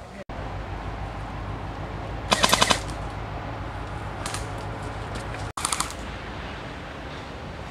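Airsoft guns firing rapid full-auto bursts: one burst of about half a dozen sharp cracks a couple of seconds in, a faint single shot, then a shorter burst of three or four cracks near six seconds.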